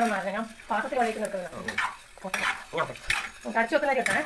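A metal spoon stirring curry in a clay pot, scraping the pot with a squeaky grating at each stroke, about six or seven strokes, each under a second long.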